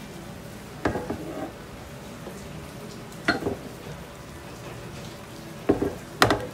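Butter and sugar sizzling steadily in a frying pan under slices of bread toasting on low heat, with four short sharp knocks, the loudest two near the end.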